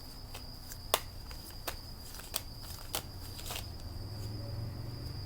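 Scattered light clicks and taps, roughly one every half second to a second, thinning out after about four seconds, over a steady high-pitched tone and a low hum.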